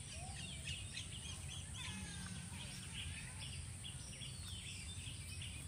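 Many small birds chirping and calling in quick, overlapping phrases, over a steady low outdoor rumble.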